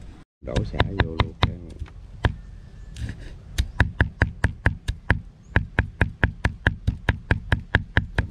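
A knife chopping on a wooden cutting board: a few uneven strokes at first, then a steady run of sharp chops, about four to five a second.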